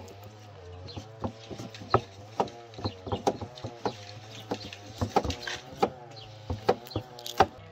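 Irregular sharp wooden knocks and clacks as a wooden rolling pin and hands work dough on a wooden board, two to four a second, with a steady low hum underneath.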